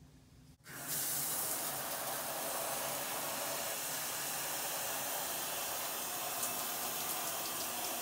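Shower turned on at a single-handle valve: water spraying steadily, starting suddenly about a second in.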